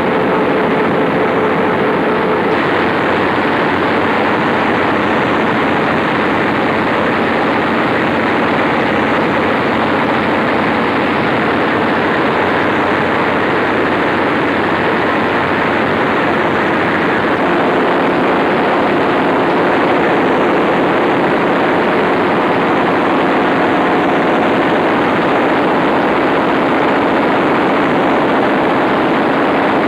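Large Fairbanks Morse stationary diesel generator engine running steadily, a loud continuous din with no breaks.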